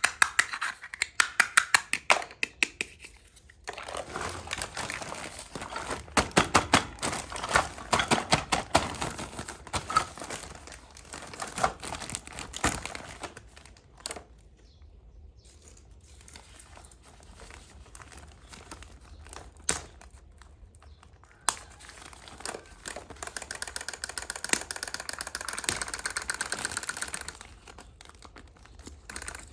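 Plastic packaging of a toy play set being crinkled and torn open. Runs of quick, sharp clicks and taps fill the first half, and a steadier stretch of crinkling comes near the end.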